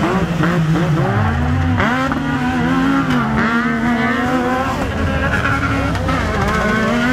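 Side-by-side UTV race car engines revving on a dirt track, several at once, their pitch climbing and dropping as the drivers get on and off the throttle.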